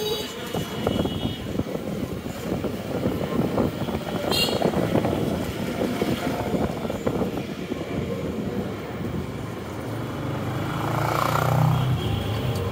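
Street traffic heard from a moving cycle rickshaw: steady rattling and road noise, with a brief high ring about four seconds in. Near the end a motor engine drones louder as it passes close by.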